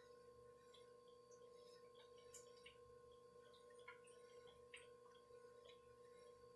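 Near silence: a faint steady hum made of two tones, with a few faint small ticks scattered through it.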